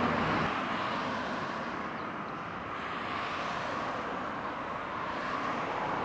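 Road traffic: cars passing on a multi-lane road, a steady rush of tyres and engines that eases about two seconds in and swells again as more vehicles go by.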